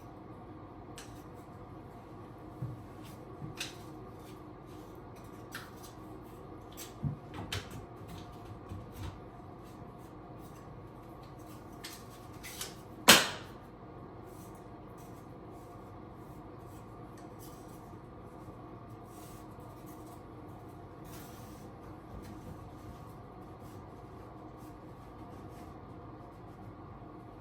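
Scattered light clicks and knocks of things being handled, with one loud sharp knock about halfway through, over a steady low hum.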